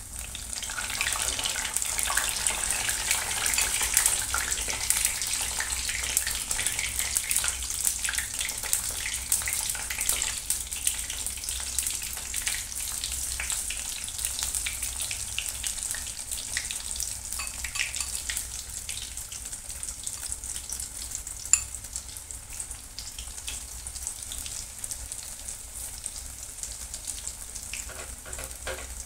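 Breadcrumb-coated paneer strips deep-frying in hot oil in a kadhai: a dense, steady crackling sizzle, loudest in the first few seconds and slowly easing. One sharp click comes about three quarters of the way through.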